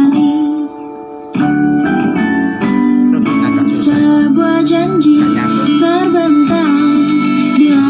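A song with singing and guitar playing through the speakers of an old cassette compo stereo, fed in through a newly added aux input; the set is working again after repair. The music dips briefly just under a second in.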